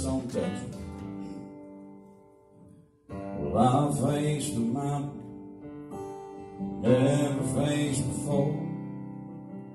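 Acoustic guitar played in slow strummed chords that ring out and fade, with fresh strums about three and seven seconds in. A man sings along over the chords.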